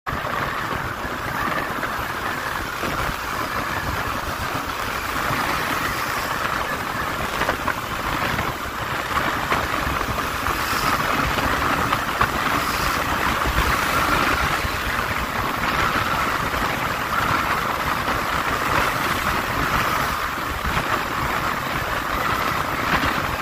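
Yamaha Lander 250's single-cylinder engine running steadily under a rush of wind and road noise as the motorcycle rides at speed.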